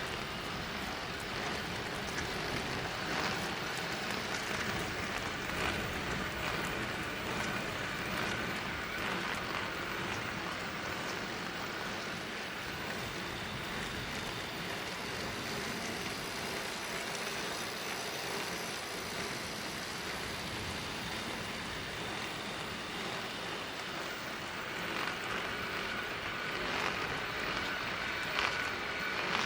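Steady rushing noise of an Azub Ti-fly 20 recumbent trike being ridden along a road: tyres rolling and drivetrain running, with a faint steady high whine.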